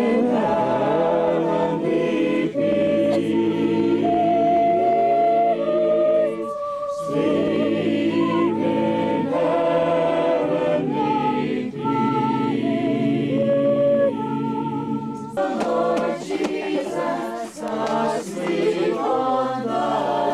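A group of carolers singing a Christmas carol together, unaccompanied, in long held notes. About fifteen seconds in it cuts abruptly to a choppier stretch of singing.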